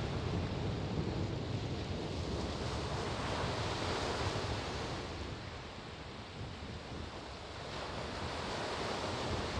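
Steady rush of wind and sea water, like surf or waves, with wind buffeting the microphone.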